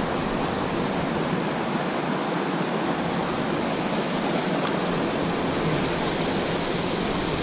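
A mountain stream rushing steadily over rocks, close by.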